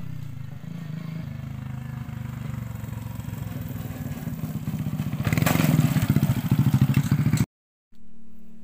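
A small engine running with a fast, even pulsing beat, growing louder about five seconds in, then cut off abruptly near the end.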